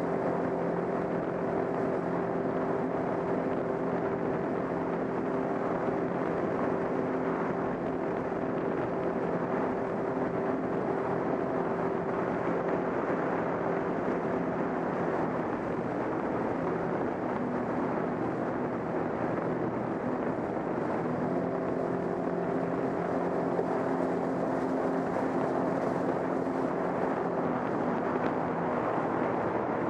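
Sea-Doo GTX 155 personal watercraft running at speed: a steady engine drone over the rush of spray and water from its wake. The engine tone sinks into the water noise for a few seconds past the middle, then comes back.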